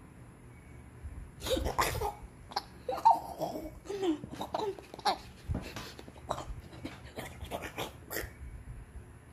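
Baby making short coos, breathy chuckles and cough-like sounds in irregular bursts, mixed with bumps and rustles from close handling.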